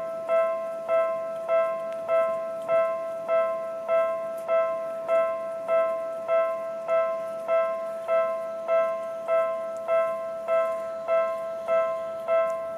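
Japanese railway level-crossing electronic warning bell ringing over and over, a steady 'kan-kan' strike about every 0.6 seconds with the same bright metallic tone each time: the crossing is closed for an approaching train.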